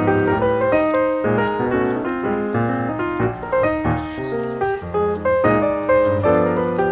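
Background piano music: a melody of many short notes over sustained lower chords.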